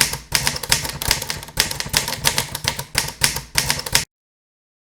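Harley-Davidson Iron 883's air-cooled V-twin running at idle through a Jekill & Hyde exhaust, an uneven lumpy beat of about four to five pulses a second; it cuts off abruptly about four seconds in.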